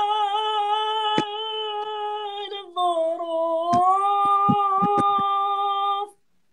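A man singing unaccompanied, drawing out a line of a Gulf Arabic song in two long held, wavering notes. The first note breaks off about two-thirds of the way in, and the second stops abruptly near the end. A few soft knocks fall under the second note.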